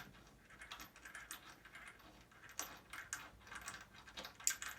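Faint, irregular small metallic clicks and ticks of a nut and washers being threaded onto a bolt by hand, with a few sharper ticks near the middle and end.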